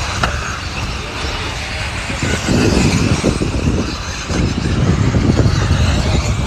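Electric off-road RC buggies running on a dirt track, heard as a steady hiss under an uneven low rumble that grows louder about two seconds in.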